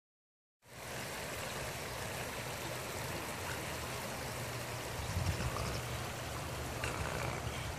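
River water flowing over a shallow, stony riverbed: a steady rushing sound that starts about half a second in.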